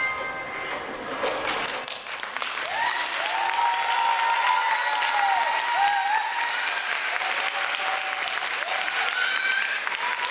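Audience clapping and cheering as the music's last note fades out. The clapping builds about a second and a half in, with high voices calling out over it for a few seconds.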